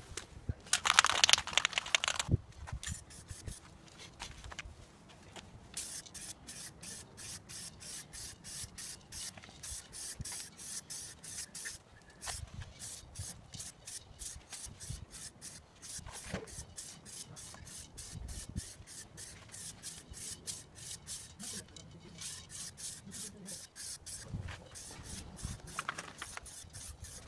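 Aerosol spray-paint can hissing in short, quick bursts, about three a second, laying dark grey paint onto a boat hull. There is one louder, longer burst of noise in the first two seconds.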